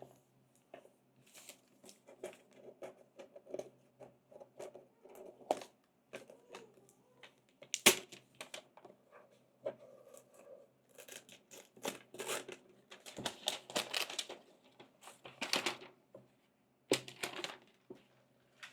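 Packaging being handled and opened: cardboard and plastic rustling, crinkling and tearing, with scattered clicks and knocks. The sharpest knock comes about eight seconds in.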